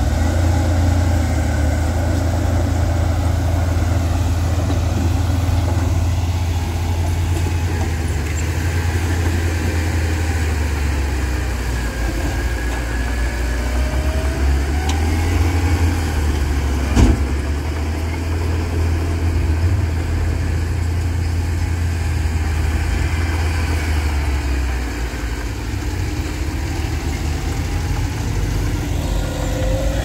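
Dump truck diesel engines running and idling, a steady low rumble with the engine pitch rising now and then. A single sharp click a little past halfway.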